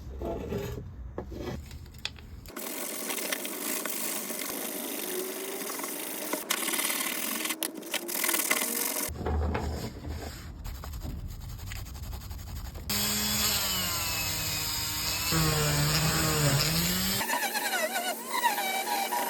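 Workshop power-tool and rubbing sounds in several short edited takes; in the later takes a motor's pitch rises and falls.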